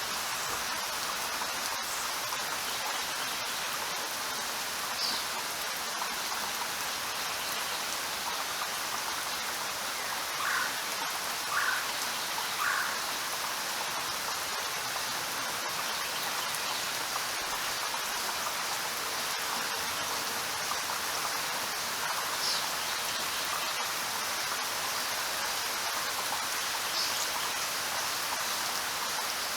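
Steady, even rainfall. A few brief chirps stand out over it: three in quick succession about ten to thirteen seconds in, and single higher ones near the start, middle and end.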